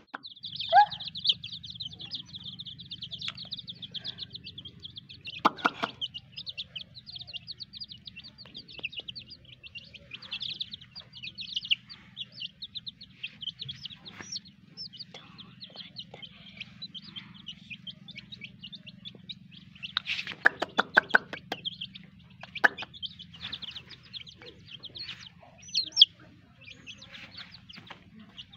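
Young chicks peeping continuously in rapid, high-pitched cheeps, with a cluster of louder calls about twenty seconds in, over a low steady hum.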